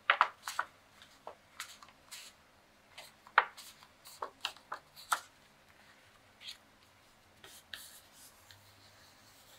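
Sheet of decorative paper being handled, folded and pressed flat by hand: irregular crinkles and rustles, busiest in the first five seconds, then only a few.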